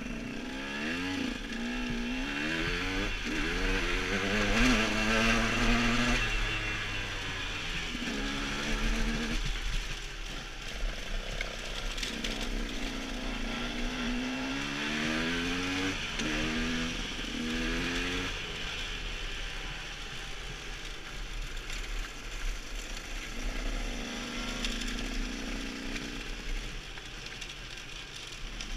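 Engine of a KTM 125 two-stroke enduro motorcycle, heard from the rider's helmet, accelerating along a rough track. Its pitch climbs repeatedly and drops back with each shift or roll-off, with stretches of steadier running in between.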